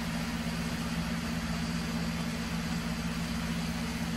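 Steady low machine hum with an even hiss behind it, unchanging throughout.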